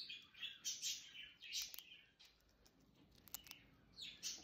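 Hamster nibbling a crunchy Goldfish cheese cracker: faint crunches and clicks in short bursts, with a lull of about a second and a half in the middle.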